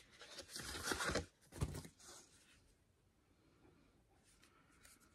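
Rustling as a cardboard eyeshadow palette is handled and lifted out of its box, with a soft knock about a second and a half in.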